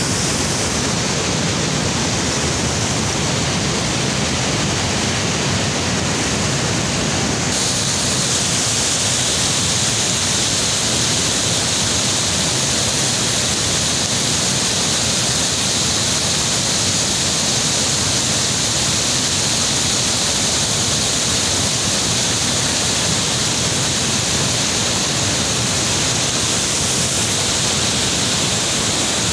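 Muddy floodwater rushing over rocks and a broad waterfall pouring over a rock ledge: a loud, steady rushing of water, whose hiss grows brighter about seven seconds in.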